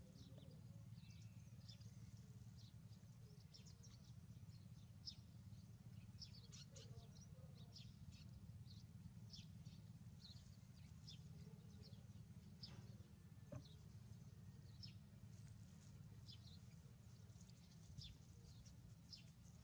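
Faint, frequent short high-pitched chirps of small birds over a low steady hum.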